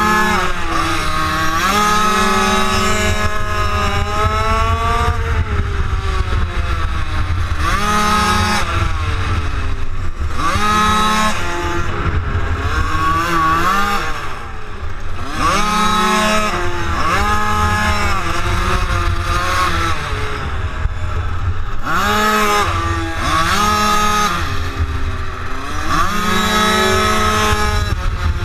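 Minimotard engines being ridden hard on a tight track: the pitch climbs on each short straight and drops away into each corner, over and over, every two to three seconds. A steady low rumble of wind on the microphone runs underneath.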